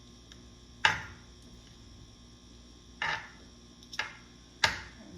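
Utensils knocking and scraping against the cooking dish while shredding baked chicken breast in its juices: four separate clatters, the loudest about a second in.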